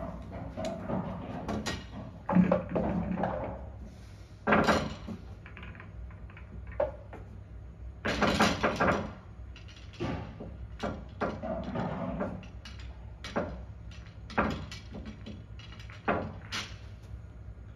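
English pool balls clacking and knocking together as they are taken from the table's ball-return tray and racked: a string of sharp clicks with a few longer clattering bursts, then a quicker run of single clicks in the second half.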